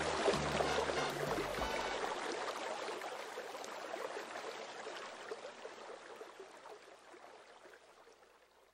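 Rushing, stream-like water noise fading slowly to silence, after the last low bass notes of a song die away about a second and a half in.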